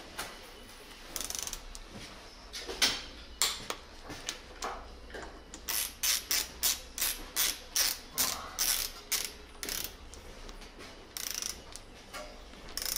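Ratchet head of a torque wrench clicking as motorcycle handlebar clamp bolts are run down in short back-and-forth strokes. Scattered clicks give way to a steady run of clicks, about two or three a second, in the middle.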